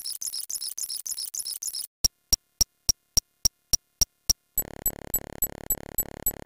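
A string of edited electronic sound effects that changes about every two seconds. First come rapid high squeaky chirps, then sharp high clicks about three and a half a second, then a buzzy pulsing synthetic tone that starts a little after the middle.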